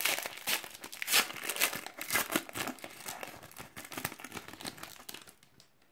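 Silver foil wrapper of a trading-card pack crinkling and tearing as it is opened by hand, dense crackling that dies away about five seconds in.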